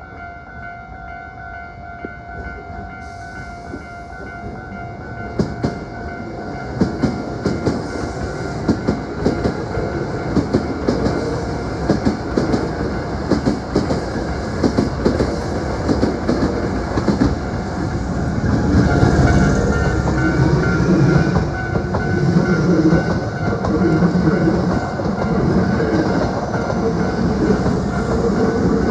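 Hankyu electric train running past on the track, its wheels clacking over the rail joints. It grows louder as it comes nearer and is loudest in the second half.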